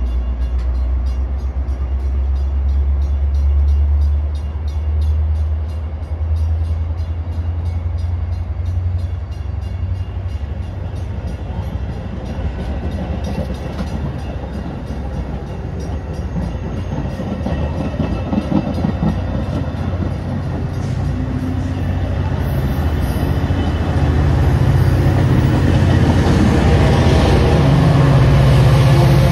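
Metra diesel commuter train pulling out: a steady low hum at first, then the bilevel passenger cars rolling past with wheels clacking over the rail joints. The diesel locomotive's engine grows louder over the last few seconds as it comes alongside and passes.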